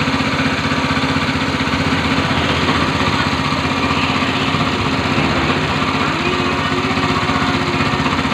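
Badja Alkon-style high-pressure washer pump set running steadily, a loud even motor hum with a rapid regular pulsing.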